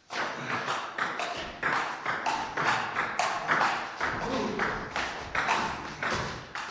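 Table tennis rally: the ball clicking sharply off the rubber-faced bats and the table in quick alternation, two to three ticks a second.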